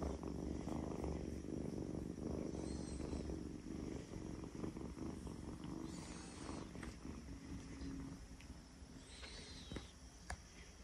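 Kitten purring close to the microphone, a steady low rumble that weakens and fades out after about eight seconds. A few faint high chirps sound over it.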